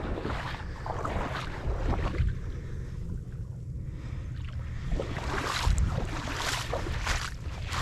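Wind buffeting the microphone outdoors: a steady low rumble with irregular gusts swelling and easing, dropping off briefly in the middle.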